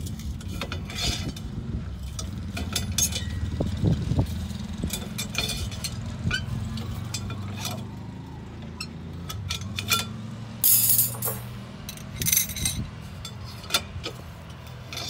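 Light metallic clinks and rattles of steel rebar stirrups being bent with a hand bending bar and handled, with one louder clatter about two-thirds in, over a steady low rumble.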